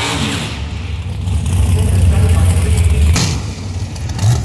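Two drag race cars idling at the starting line, a heavy low rumble that swells in the middle, with a short sharp crack about three seconds in and a brief rev near the end.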